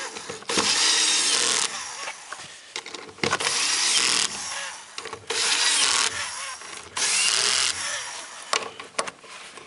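Cordless screwdriver with its clutch set to a 7 N·m limit, running in short bursts of about a second each as it drives the small bolts of the fuel pump mounting flange home one after another.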